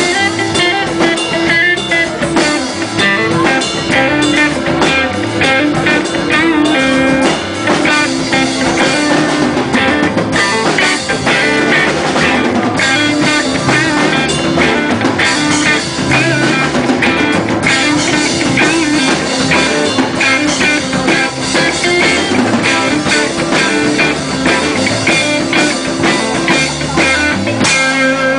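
Live rock band playing an instrumental passage, with electric guitar lead over drum kit.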